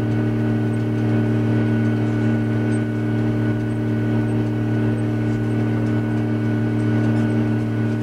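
Heavy harvest vehicle's engine running at a constant speed, heard as a steady drone from inside its cab while it travels down the road, with a thin whine above it.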